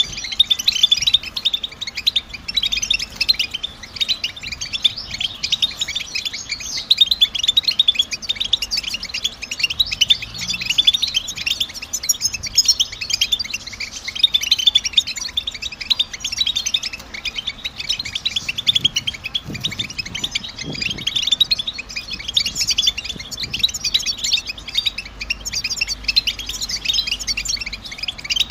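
European goldfinch twittering: a dense, unbroken stream of quick, high chirps and trills, the rapid 'batbata' chatter.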